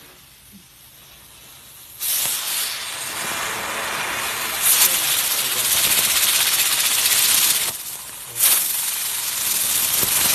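Small novelty ground firework hissing as it sprays sparks. The hiss starts suddenly about two seconds in, breaks off briefly about eight seconds in, then starts again.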